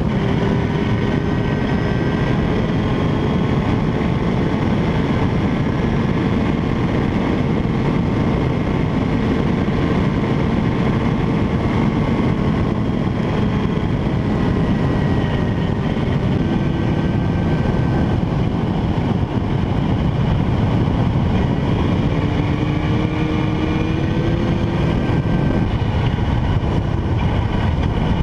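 Motorcycle engine running at steady mid-range revs on the move, its pitch drifting slowly up and down with the throttle, under a continuous rush of wind and road noise.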